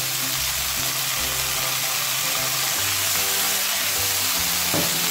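Mixed vegetables sizzling in hot oil in a frying pan, stirred with a silicone spatula, with a brief louder scrape near the end. Background music plays underneath.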